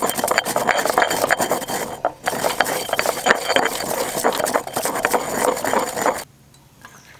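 Stone pestle grinding herbs and seeds in a stone mortar: a dense, gritty scraping grind with many small clicks of stone on stone. It pauses briefly about two seconds in and stops abruptly a little after six seconds.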